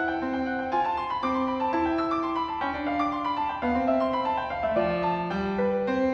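Background piano music: a gentle melody of single notes changing about every half second over lower accompanying notes.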